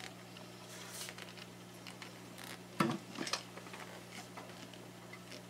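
Hands handling a webbing strap at an industrial sewing machine: a few soft rustles and clicks, the loudest a sharp knock about three seconds in. A steady low hum runs underneath.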